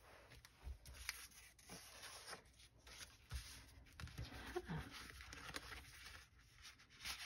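Faint rustling and handling of sheets of craft paper, with scattered soft clicks and taps.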